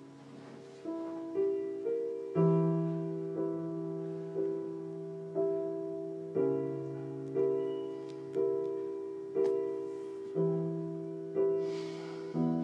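Slow solo piano background music: a note struck about once a second over held low chords.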